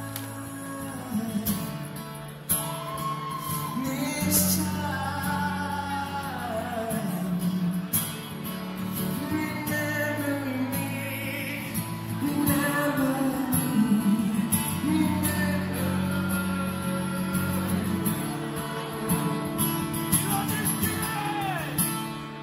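Live rock ballad: a man singing with strummed acoustic guitar through a concert PA, echoing in a large hall; the music fades down near the end.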